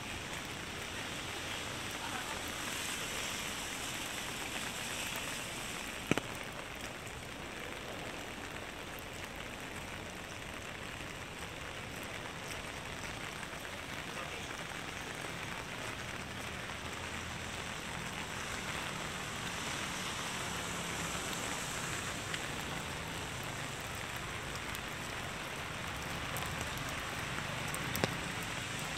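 Steady rain falling on pavement and puddles, an even hiss, with a single sharp click about six seconds in.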